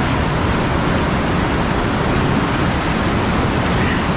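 Whitewater rapid rushing loudly and steadily up close: a pour-over crashing over a log and around a pinned kayak.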